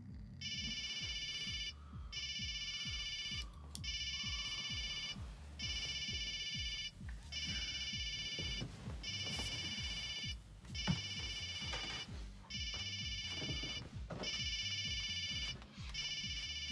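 Telephone ringing in about ten repeated rings, each just over a second long with short gaps between them. Softer rustling and knocks of someone stirring in bed sound underneath.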